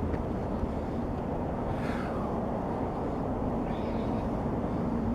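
Steady low rumbling outdoor background noise, with a couple of faint brief sounds about two and four seconds in.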